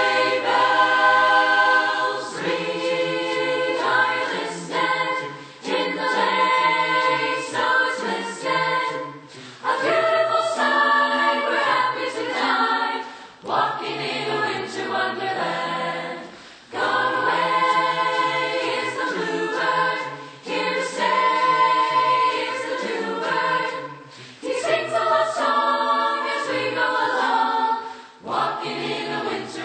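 A high school choir singing a cappella in several voice parts, in phrases with short breaths between them.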